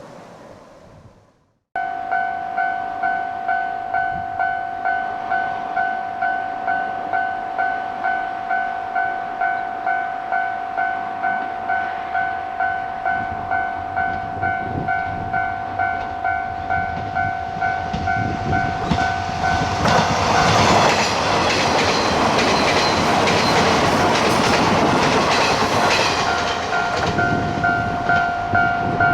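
Japanese railway level-crossing warning bell starting suddenly about two seconds in, a two-tone electronic ding repeating at about one and a half strikes a second. About twenty seconds in a train passes over the crossing, its wheel clatter and rumble drowning out the bell for several seconds, and the bell is heard again near the end.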